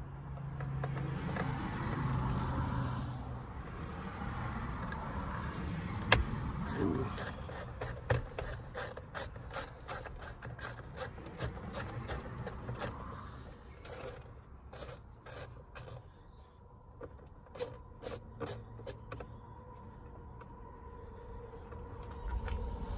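Hand tool working T30 Torx screws out of the side of a Toyota Tundra steering wheel to free the airbag: scraping and rubbing at first, then a long run of quick, sharp clicks, two or three a second, through the middle.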